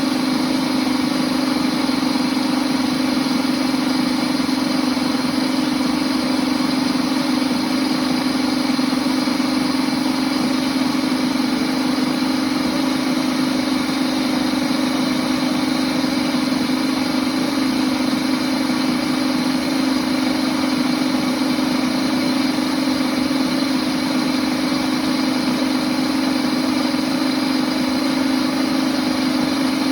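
Princess House Vida Sana blender motor running steadily on its soup program, blending milk with whole chocolate tablets, cinnamon and sugar: an unchanging loud hum with a whirring wash above it.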